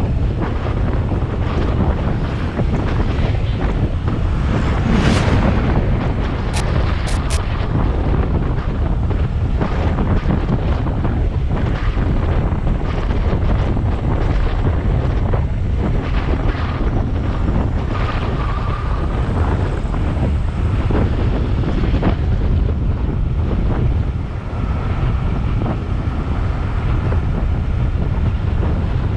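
Wind rushing over the microphone of a camera on a moving motorcycle, with a steady low rumble underneath.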